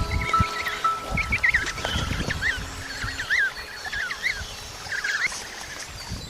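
Animal calls: many short, high chirps that bend up and down, overlapping one another, over a low rumble with scattered thumps.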